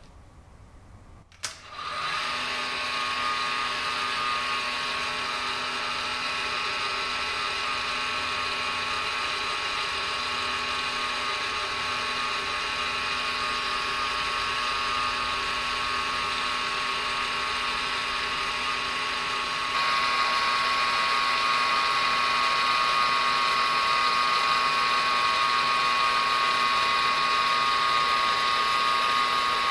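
Aciera F1 milling machine's spindle motor switched on with a click about a second and a half in, then running with a steady whine while the end mill cuts the copper watch case as the rotary table is turned. The sound gets a little louder about two-thirds of the way through.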